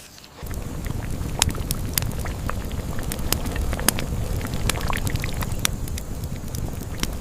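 Wood cooking fire crackling and popping, with sharp irregular snaps over a steady low rumble that starts abruptly about half a second in.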